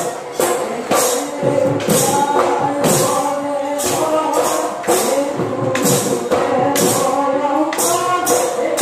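Husori Bihu music: a group of men singing together to dhol drums, with taal hand cymbals clashing steadily on the beat.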